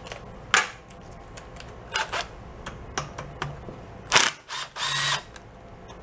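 Cordless power driver spinning briefly, about four and a half seconds in, backing out a screw from a small engine's ignition coil. Before it come a few light clicks and knocks of tools being handled, and a sharper knock just before the motor starts.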